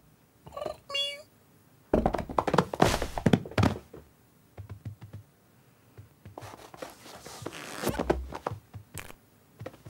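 Cartoon cat sound effects: a kitten mews briefly and high about a second in, then a quick flurry of thumps and scuffles as the cat scrambles up onto a sofa. Later come light taps, a scratchy rustling, and a heavier thump near the end.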